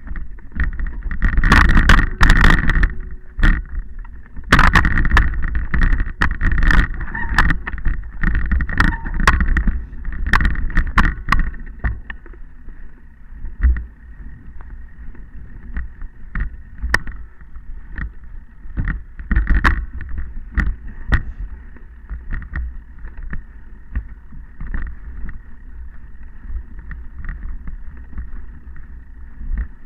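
Mounted camera jolting over a rough rocky trail: dense rattling and knocks over a low wind rumble on the microphone, heaviest in the first dozen seconds, then sparser knocks.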